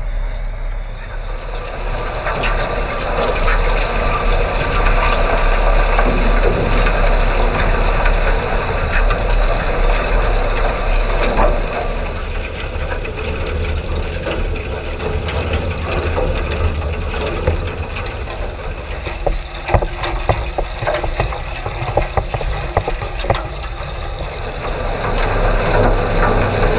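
Underwater sound at a bottom-trawl otter board being towed at 55 m depth: a steady rushing water-flow noise over a low rumble, with continual crackling and scraping. Sharp clicks and knocks come thickest in the later part.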